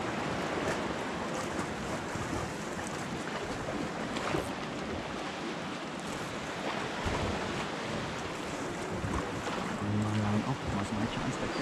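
Small waves washing against shoreline rocks, with wind buffeting the microphone.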